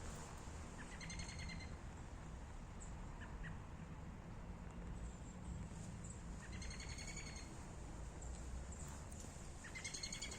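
A songbird singing: a short, rapid trill of repeated notes, given three times a few seconds apart, with a few faint chirps in between, over a steady low background rumble.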